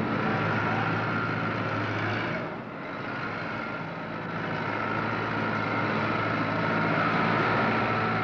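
A tractor engine running as a finished tractor drives off the assembly line, over steady factory machinery noise. The sound dips briefly about two and a half seconds in.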